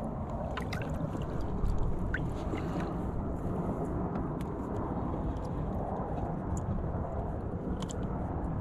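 Wind buffeting the microphone, a steady low rumble with a few faint clicks through it.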